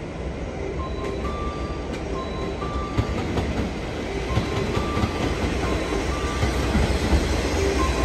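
JR West 227 series electric train pulling into the platform, its low running rumble and rail clicks growing louder as it nears. A simple repeating two-note electronic chime sounds over it.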